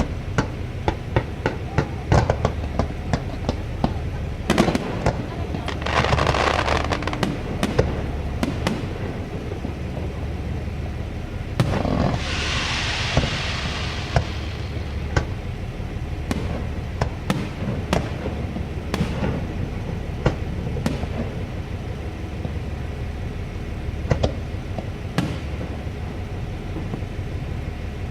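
Aerial fireworks going off: a rapid run of sharp bangs, densest in the first ten seconds or so, with two longer hissing, crackling showers, one about six seconds in and one about twelve seconds in, over a steady low rumble.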